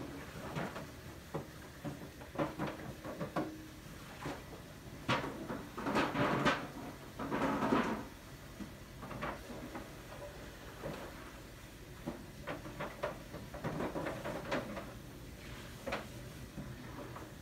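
Scattered knocks and clicks of things being handled in a kitchen, with a denser, louder run of clatter about five to eight seconds in.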